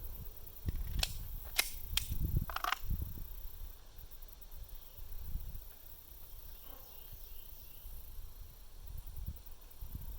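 Beretta 92 9mm pistol fired one-handed: four sharp shots about half a second apart in the first three seconds, then only a low rumble.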